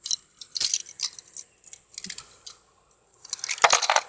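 Small metal clinks and rattles of a bunch of keys being handled, in scattered clicks with a denser burst of jangling near the end.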